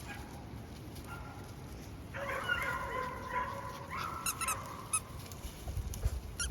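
Collie puppies whining, one long whine in the middle followed by a few short high yips.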